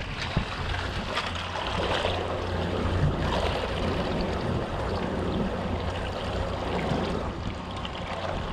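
Boat under way: a steady low engine hum under the noise of rushing, splashing water.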